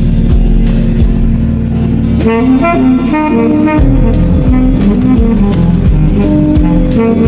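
Background music: a jazzy instrumental with a saxophone-like melody over bass and a steady drum beat.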